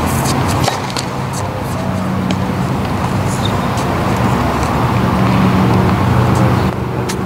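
A steady low motor hum, like a vehicle engine running nearby, with a few light clicks and taps over it.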